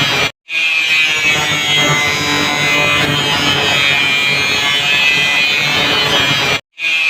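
Electric grinder cutting and grinding with a continuous high whine. It cuts out abruptly for a moment about half a second in and again near the end.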